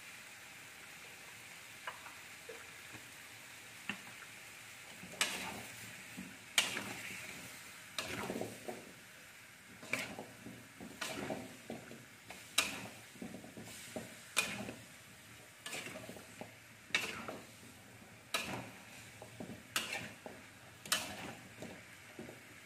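Metal spatula scraping and knocking against a wok as chunks of chicken, potato and carrot are stir-fried, with repeated strokes about once a second from about five seconds in. Before that there is only a faint steady sizzle and a couple of light clicks.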